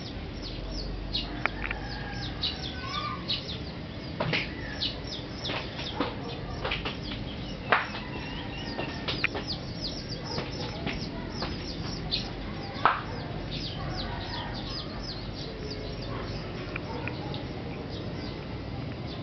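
Chickens clucking over constant rapid, high-pitched chirping of small birds. A few louder, sharp notes stand out about four, eight and thirteen seconds in.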